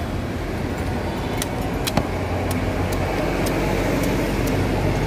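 Machete blade chopping into toddy palm (palmyra) fruit, sharp cuts at about two a second, over the steady rumble of road traffic.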